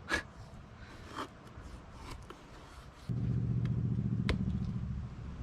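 A few short scrapes of a knife blade shaving fatwood. About three seconds in, a steady low engine-like drone starts abruptly and goes on.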